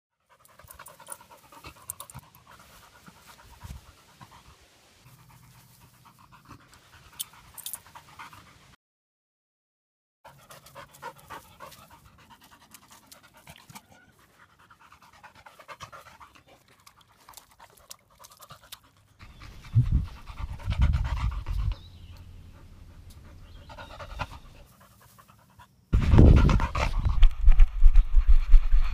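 Yellow Labrador retriever panting after running and fetching. The sound drops out for about a second about nine seconds in, and near the end a loud low rumble comes in.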